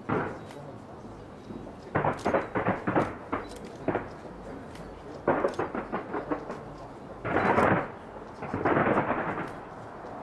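Fireworks bursting in volleys of rapid bangs and crackles. There are bursts at the start, then about two to four seconds in, at five to six and a half seconds, a dense one just after seven seconds, and another near nine seconds, with short lulls between them.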